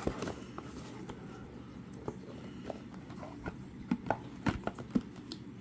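Light taps, clicks and rubbing as hands handle a small cardboard box over a wooden table, with a few sharper taps in the second half.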